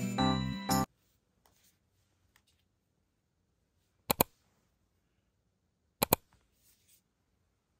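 Background music that stops about a second in, then near silence with faint rustling of pages being handled. Two short, sharp double clicks break the quiet, about two seconds apart, near the middle.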